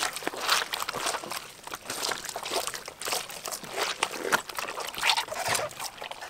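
Wet squelching and sloshing of raw beef tripe being kneaded and scrubbed by hand in water on a steel tray, in irregular strokes.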